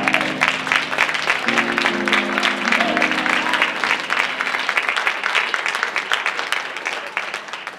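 Audience applauding, over held musical chords that change twice and stop about halfway through; the clapping gradually dies away toward the end.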